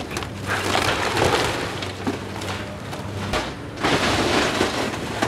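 A Komatsu hydraulic excavator tearing apart a wood-frame house: two long spells of splintering wood and falling debris, over the excavator's steady diesel engine.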